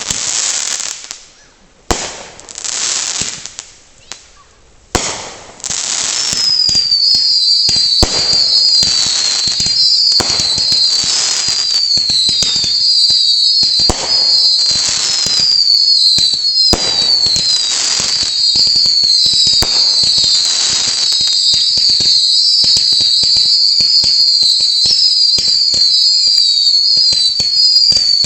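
Consumer fireworks going off: sharp bangs and hissing bursts, then from about six seconds in a continuous stream of short whistles, each falling in pitch, over a crackling hiss with occasional bangs.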